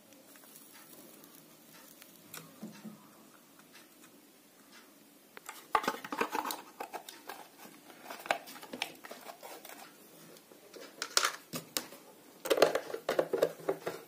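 Clicks and knocks of a small hard-plastic speaker enclosure being handled and its two halves pressed together, starting about halfway through and getting busier and louder near the end as the box is set down on the bench.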